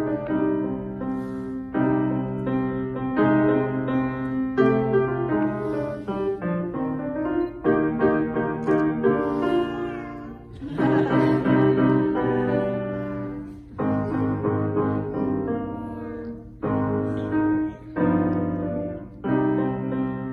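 Grand piano being played solo: chords and short melodic phrases, each note struck and dying away, with brief breaks between phrases.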